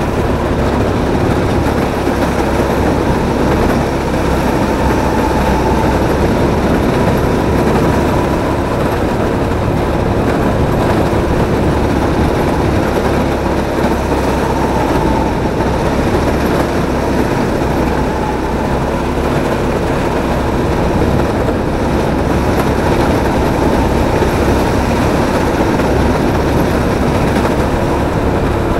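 Drift kart running on track, heard from a camera mounted on the kart: a loud, steady drone of motor and tyre noise with no sharp revving.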